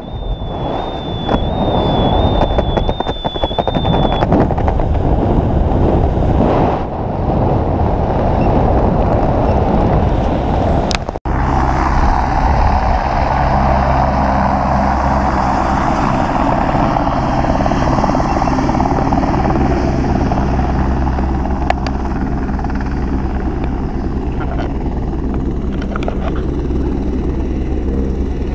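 Wind rushing over the camera microphone under an open parachute canopy, with a faint warbling whistle in the first few seconds. About eleven seconds in, a sudden cut to a steady, even engine-like drone that holds to the end.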